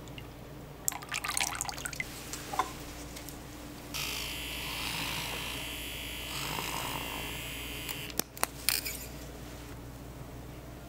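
Liquid being poured for about four seconds, as a steady hissing pour. It is framed by sharp clicks and clatter before it and a few sharp clicks just after it.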